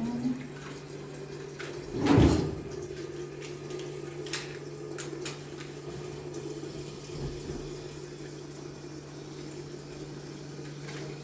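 Water running or being poured in a kitchen, with a loud splash or clatter about two seconds in and a few light knocks later, over a steady low hum.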